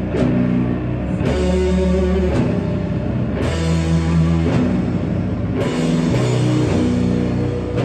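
Rock band playing live: guitars and bass holding low, sustained chords that change every second or so, over drums, with cymbal crashes about every two seconds.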